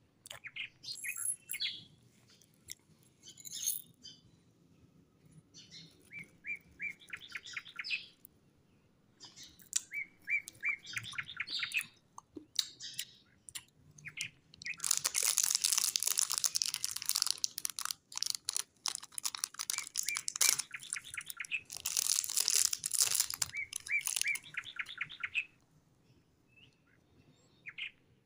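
Small birds chirping in repeated quick trills throughout. Twice, about halfway through and again a few seconds later, comes a loud crackly rustle of a plastic wrapper being opened around a chocolate wafer bar.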